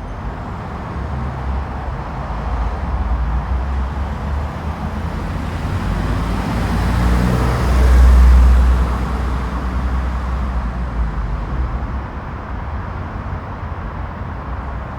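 Car engine running in a multi-storey car park over a steady low rumble, getting louder to a peak about eight seconds in and then easing off as the car passes.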